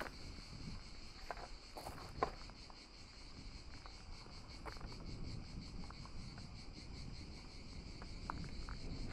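Insects chirring outdoors, a faint, steady, high-pitched pulsing drone, with a few soft ticks over it.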